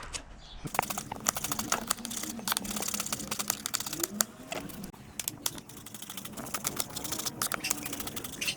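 Rapid, irregular crackling clicks, several a second, with faint voices underneath.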